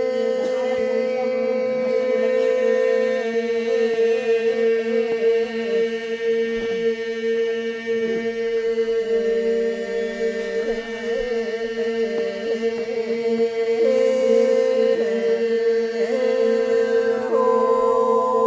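Manimbong, a Toraja ritual chant, sung unaccompanied by a group of voices: a steady held drone with wavering melodic lines sung above it.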